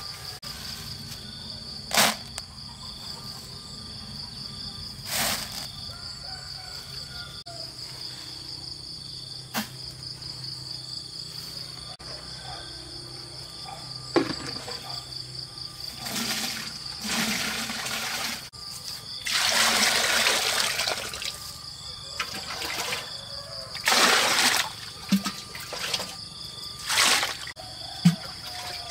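Steady high chirring of crickets or other insects, with a few sharp knocks in the first ten seconds. In the second half come several bursts of splashing water, the longest lasting about two seconds.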